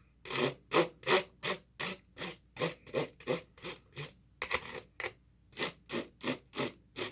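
Eating utensils being wiped clean with quick rubbing strokes, about two or three a second.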